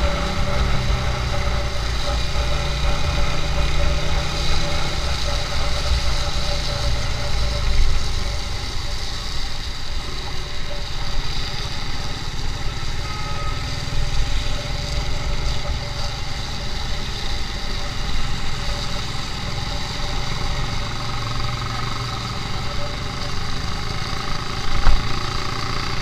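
A motorcycle engine running steadily while riding in city traffic, with wind and road noise, heard from the rider's seat. A single sharp knock comes about a second before the end.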